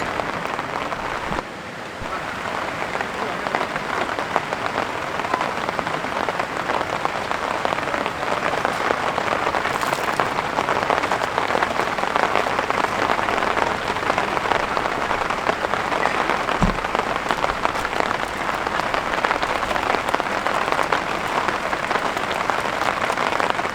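Heavy rain falling steadily, a dense, even patter of drops. There is a brief dip in level about two seconds in and a single low thump about two-thirds of the way through.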